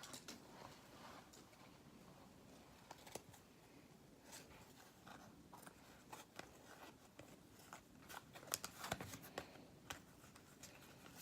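Near silence with faint rustles and light clicks of trading cards being handled and flipped through, a few slightly louder near the middle and about two-thirds of the way in.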